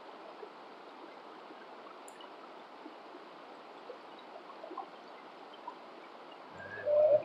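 Shallow creek water running over rocks, a steady rushing hiss. Near the end comes a short, louder voice-like sound.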